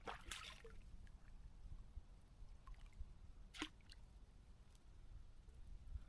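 Near silence over a low rumble, broken by a brief rustle at the start and one sharp click a little past the middle.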